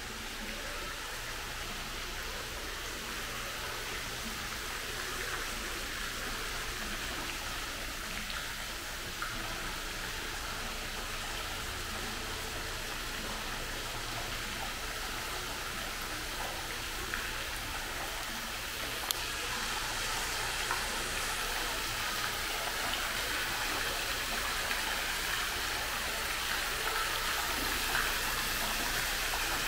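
Indoor mall fountain: water splashing and falling in a steady hiss, growing somewhat louder about two-thirds of the way through, over a low steady hum.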